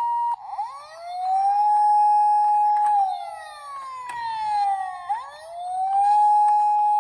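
Emergency-vehicle wail siren: a two-note hi-lo tone cuts off right at the start. A rising wail then climbs, holds, slides slowly down about two seconds later and climbs again to hold near the end.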